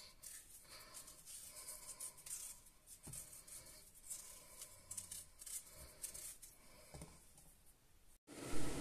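Paring knife peeling a raw potato: faint, irregular scraping strokes as the blade shaves off strips of skin.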